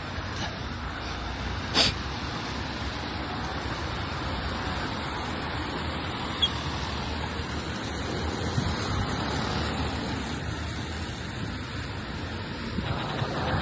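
Steady outdoor street ambience with road traffic going by, and one sharp knock about two seconds in.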